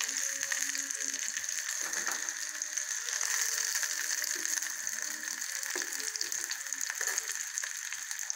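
Whole marinated chicken frying in a shallow layer of oil in a nonstick pan: a steady sizzle with dense fine crackling and spitting of the oil.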